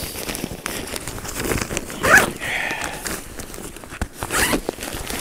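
Backpack zipper being worked and the pack's nylon fabric rustling as hands rummage through the lid pocket, in short uneven scrapes and swishes.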